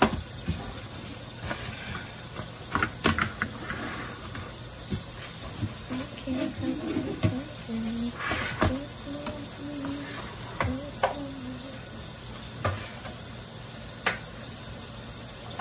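Lunch containers and bottles being handled and set down on a kitchen counter: a string of scattered clicks and knocks. Under them is the steady sizzle of breakfast frying in a pan.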